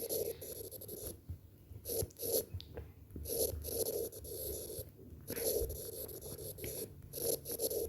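Handwriting with a pen: a run of short scratchy strokes with brief pauses between them.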